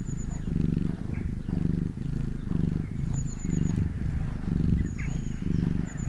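Domestic cat purring, the low purr swelling and fading about once a second. A few short runs of high chirps sound over it.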